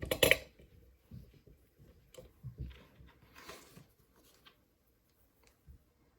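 Hands handling a padlock and lockpicking tools: a sharp clack right at the start, then scattered light clicks and taps, with a brief rustle a little past halfway.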